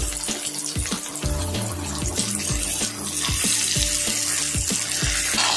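Whole fish sizzling in hot oil in a pan as they fry, with a steady hiss. Background music with a regular beat plays underneath.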